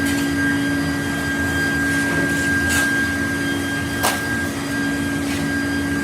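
A machine tool running with a steady hum and a fixed whine, with two short sharp clicks about three and four seconds in.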